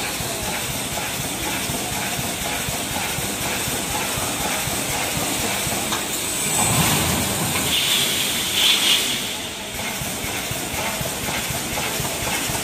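Automatic wire mesh panel welding machine for 3–6 mm steel wire running, giving a steady hissing, clattering noise. It grows louder for a few seconds past the middle, then settles back.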